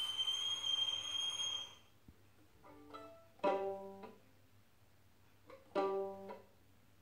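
Violin holding a high note that fades out about two seconds in, then two plucked pizzicato chords a little over two seconds apart, each ringing briefly and dying away.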